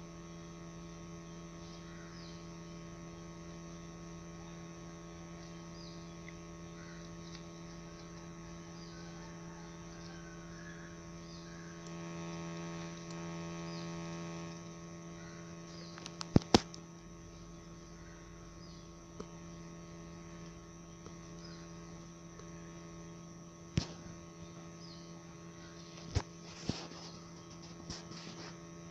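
A steady electrical hum with even overtones, over faint short high chirps that come every second or two. A few sharp clicks sound in the second half, two close together about halfway through.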